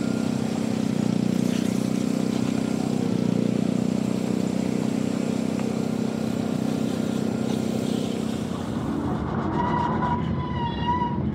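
Machinery running steadily with a strong low hum. Near the end a wavering high tone with overtones comes in for a second or two.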